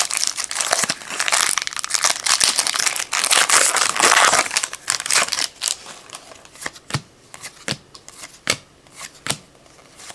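A 2013 Topps football card pack's wrapper crinkling as it is torn open. Then, from about halfway, sharp separate snaps as the cards are flicked through one at a time.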